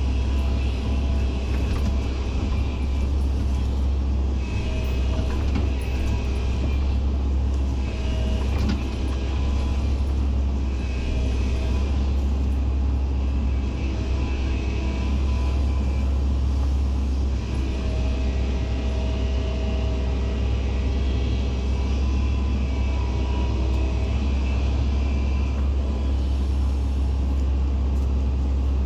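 Excavator's diesel engine running steadily under work with a deep drone, with higher tones that rise and fade as the machine works.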